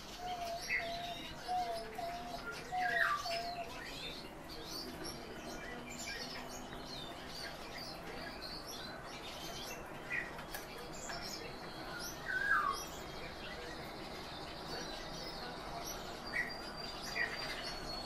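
Tame thrush giving scattered short chirps and a couple of quick falling calls, with light taps on the plate as it pecks at the food.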